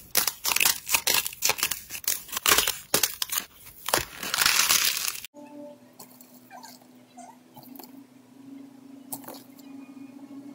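Dense crunching and crackling as a thick pastel slime with a crusty top is squeezed and kneaded by hand; it cuts off suddenly about five seconds in. After that comes a much quieter stretch: a steady low hum with a few faint clicks as a potato masher presses a clear, crunchy, glass-like slime on a glass plate.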